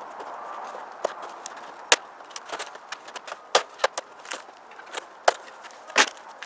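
A strip of vinyl siding being unsnapped and pulled off a wall: a string of sharp, irregular plastic clicks and snaps as its locking edge lets go and the panel flexes.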